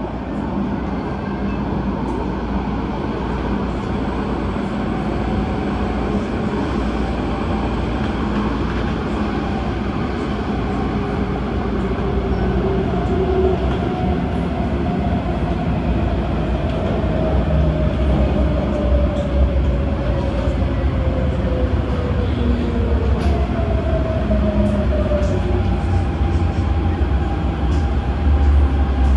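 Adtranz-CAF electric multiple unit train running on the MTR Tung Chung Line, a steady rumble of wheels and motors. Through the middle a faint tone slowly falls in pitch, and the low rumble grows louder in the second half.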